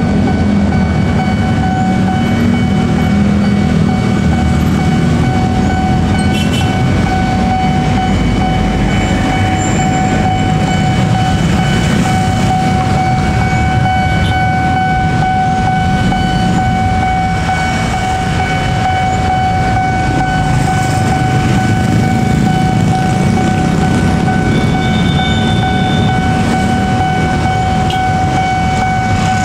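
Railroad level-crossing warning alarm sounding one steady, unbroken tone, over a constant low rumble from waiting traffic and rail traffic.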